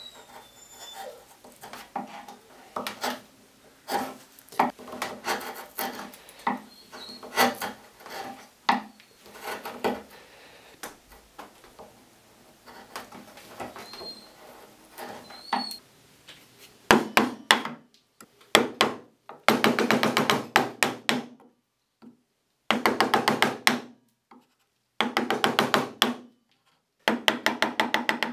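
Hand tools working pine: scattered scraping and tapping strokes at first, then from a little past halfway several short bursts of rapid rasping strokes separated by silences, as a chisel pares and shapes the body of a wooden rebate plane.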